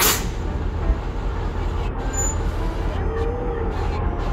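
Narrow-gauge children's railway train making a steady low rumble.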